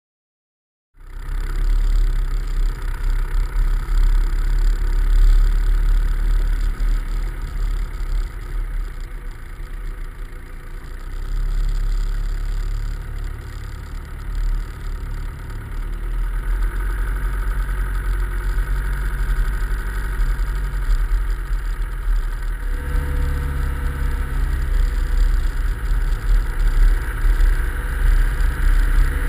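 Land Rover Discovery driving along a rough track, engine and road noise heard muffled through the bonnet-mounted GoPro's sealed housing. It starts about a second in and grows louder and deeper about three-quarters of the way through.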